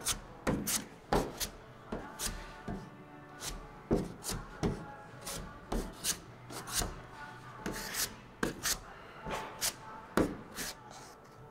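A plastic spreader scraping auto body filler across a fiberglass truck hood in short, irregular strokes, about one or two a second. Faint music plays underneath.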